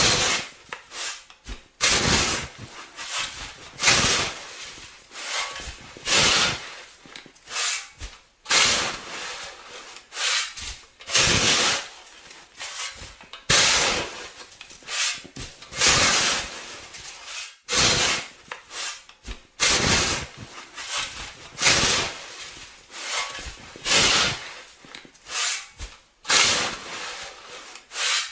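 Snow shovel scraping through snow in repeated strokes, one every second or two, each a rough rasping scrape with short pauses between.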